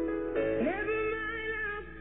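Music playing, with guitar; about half a second in, a new phrase starts with a note gliding up in pitch.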